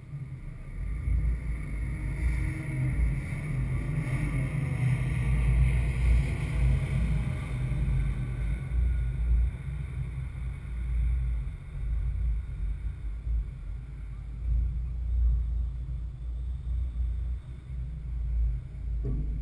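Wind buffeting the camera's microphone: a loud, gusting low rumble that rises and falls throughout.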